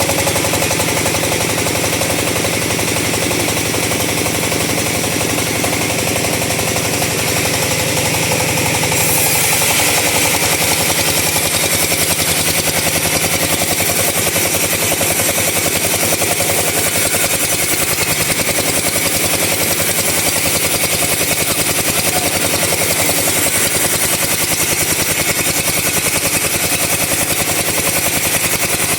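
Two-stroke chainsaw running at high speed while cutting a teak log, a loud continuous buzz with a rapid pulse; its tone shifts higher about nine seconds in.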